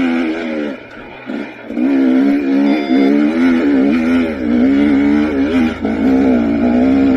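Two-stroke dirt bike engine revving up and down as the throttle is worked on and off, with a short throttle-off lull about a second in.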